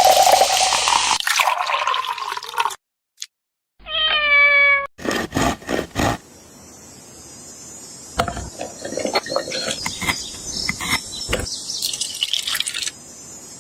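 A rush of running water for the first few seconds, then a single short cat meow about four seconds in, followed by a string of sharp clicks and knocks from kitchen work.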